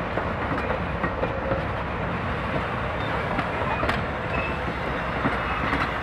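Vintage passenger coaches and baggage cars of an excursion train rolling past: a steady rumble of steel wheels on the rails, with a few sharp clicks as the wheels pass over rail joints.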